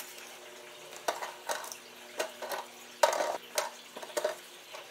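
Hands seating grow sponges into the pod holes of a hydroponic garden's plastic lid: a string of light, irregular plastic taps, scrapes and rustles.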